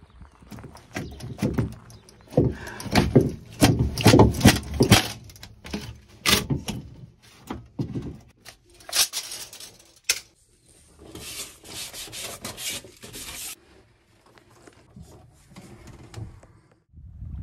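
Hands and tools working in a sailboat's engine compartment: a run of knocks, clicks and clatter with rubbing, then a few seconds of rustling about eleven seconds in, then quieter handling.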